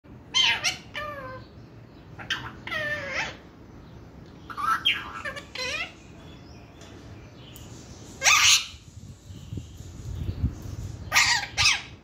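A pet parrot calling in clusters of short, pitched calls, several sliding down in pitch; the loudest call comes about eight seconds in.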